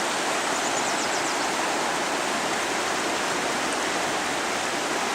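Steady rush of the Arkansas River's current, a fast-flowing mountain river running at about 680 cubic feet per second.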